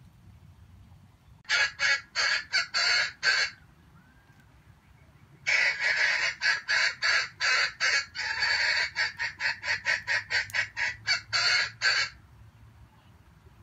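Junglefowl cackling: rapid, harsh clucks in two bouts, a short run of about seven about two seconds in, then a longer, faster run from about five and a half seconds to twelve.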